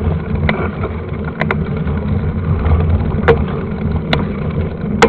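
Riding noise from a moving mountain bike: a steady low rumble of wind and tyres on the trail, broken by sharp clicks and knocks every second or so as the bike rattles over bumps, the loudest near the end.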